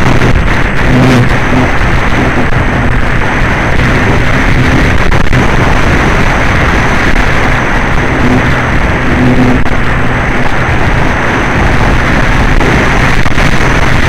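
Loud, steady wind rush buffeting the microphone of a camera mounted on a radio-controlled plane flying in strong wind, with a faint low hum underneath.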